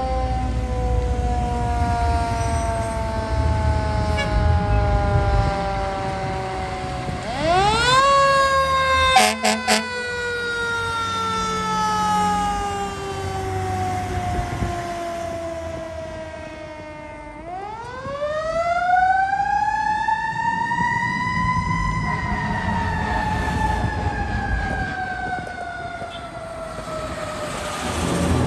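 Fire engine siren wailing in long slow sweeps. It falls from the start, jumps up sharply about seven seconds in, sinks again, then climbs slowly to a peak a little past twenty seconds in and trails off. A few short air-horn blasts sound around nine seconds in, over the low rumble of the truck's engine.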